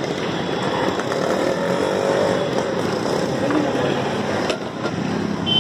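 Street traffic noise with motorcycles running and passing close by, a steady dense hum, and one sharp knock about four and a half seconds in.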